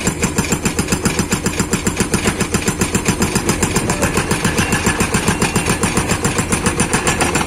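Rammer hydraulic rock breaker on a Komatsu PC210 LC excavator hammering rock with rapid, even blows, several a second, over the excavator's diesel engine running steadily.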